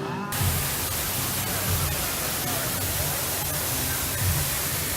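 A steady, even hiss that starts abruptly a moment in, with faint voices underneath.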